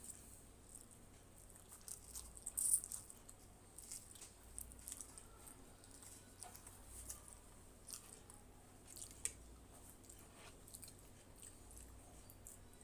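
Close-miked mouth sounds of someone chewing Maggi masala noodles: scattered soft clicks and smacks, with the loudest cluster about two and a half seconds in and a sharp one near nine seconds.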